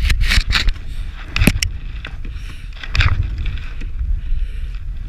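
Snowmobile running on lake ice, picked up by a mounted action camera as a low rumble with hiss and scattered knocks and clicks, with a sharp click about a second and a half in and a surge about three seconds in.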